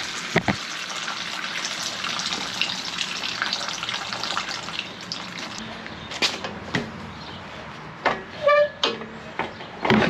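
Coolant pouring in a steady stream out of an upturned small-block Ford V8 cylinder block into a plastic drain pan, tapering off after about five seconds. Then a few knocks and a short squeak near the end.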